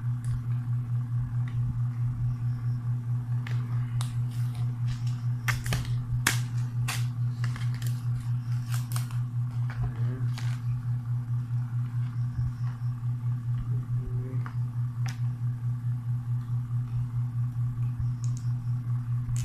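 Plastic and card packaging of a microSD card crackling and clicking as it is handled and opened, in scattered sharp clicks thickest from about four to ten seconds in. Under it runs a steady low hum with a regular pulsing.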